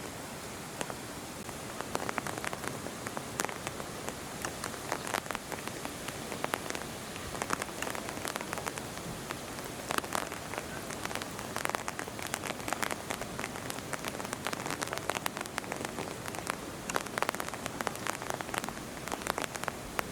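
Rain falling, with many irregular drop ticks striking a nearby surface over a steady hiss.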